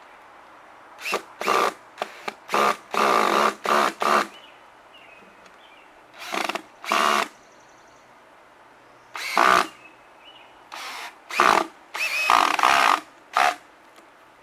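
Cordless drill driving wood screws into a pine board, run in about a dozen short stop-start bursts with pauses between, each a fraction of a second to about a second long, with a steady motor whine. The screws go in with difficulty; she suspects the driver bit is rounding off the screw heads, or operator error.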